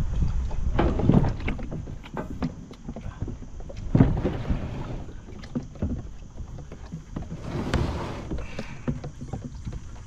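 Plastic Bonafide SS107 kayak hull scraping and knocking as it is pushed along the chute of a kayak launch, with several sharp knocks, the loudest about four seconds in, over a low rumble of wind on the microphone.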